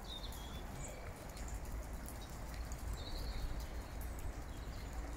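Outdoor countryside ambience: a steady low rumble under a light hiss, with a few short, faint bird chirps about a second apart and again about three seconds in.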